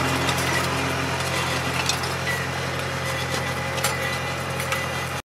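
Compact tractor engine running steadily while it pulls an in-row vineyard weeder with a motorized disc gang through the soil, with a few sharp clicks and knocks from the working tools. The sound eases slightly as the tractor moves away, then cuts off suddenly just before the end.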